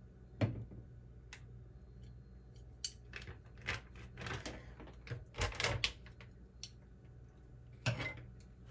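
Kitchen handling sounds: a string of separate knocks and clicks, with short rustling stretches in the middle, over a steady low hum.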